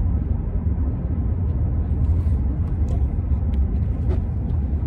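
Steady low rumble of a car heard from inside its cabin, with a few faint ticks over it.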